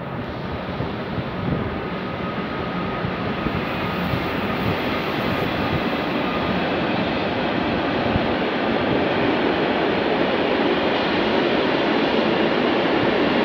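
Freight train of car-carrier wagons loaded with vans rolling through the station: a steady rolling noise that grows gradually louder, with a faint high whine in the first half.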